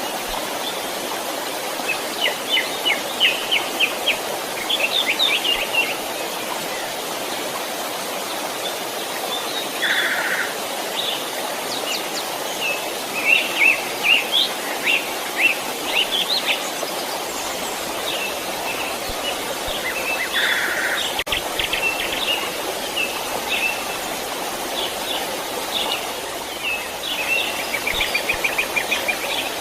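Creek water flowing with a steady rush, and small birds chirping over it in several bouts of quick repeated notes.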